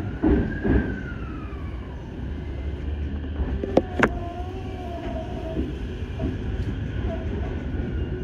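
Chuo Line Rapid electric train running at low speed, heard from the driver's cab: a steady low rumble of wheels on rail, with two sharp clacks about four seconds in and faint whining tones above the rumble.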